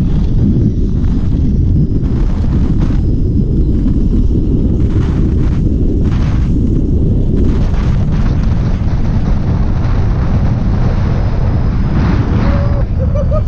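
Heavy wind buffeting on the microphone of a camera mounted on an Ola S1 Pro electric scooter accelerating hard: a loud, steady, deep rumble, with no engine note from the scooter itself.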